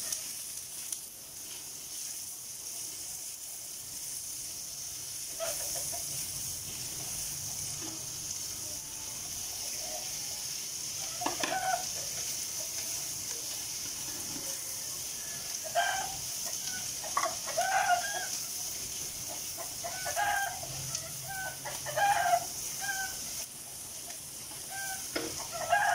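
Pork, shrimp and green beans sizzling steadily in a wok, with stirring. From about eleven seconds in, chickens cluck and call again and again in the background, the calls louder than the sizzle.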